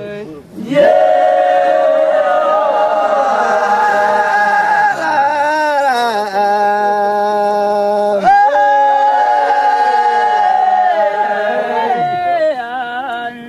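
A group of Wodaabe men chanting together a cappella, holding long notes with slides between them; the phrase breaks off and starts again about eight seconds in. This is their warm-up singing before the dance.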